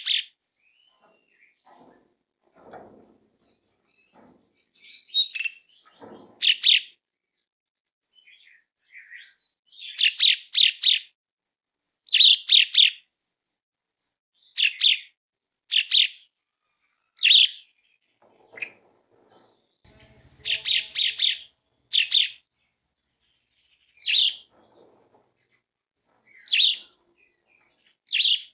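Asian pied starling (jalak suren) calling loudly and harshly, in quick clusters of two to four rough notes and in single notes, a second or two apart.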